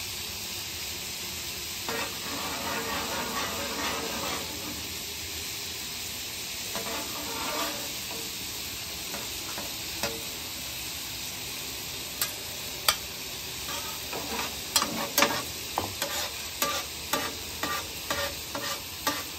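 Beaten eggs sizzling as they are poured onto a hot flat-top griddle slick with beef tallow and oil. In the second half a steel spatula taps and scrapes on the griddle top in short, sharp clicks.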